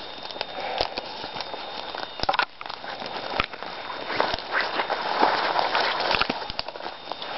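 Footsteps rustling through grass and dry twigs, with irregular crackles and clicks.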